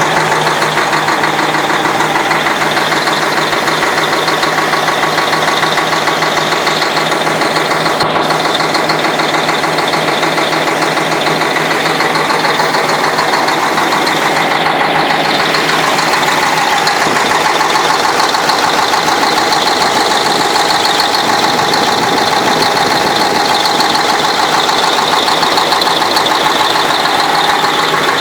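YaMZ-6581.10 V8 turbodiesel idling steadily with a knock that the owner cannot identify.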